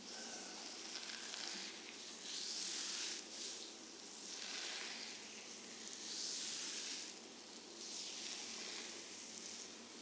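Hands sliding over skin in slow massage strokes: a soft hiss of skin friction that swells and fades every second or two.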